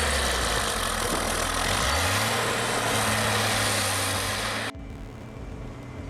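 A PistenBully snow groomer's engine running under a loud, even hiss, its low hum stepping up in pitch about two seconds in. Near the end the hiss cuts off abruptly, leaving a quieter, steady engine hum.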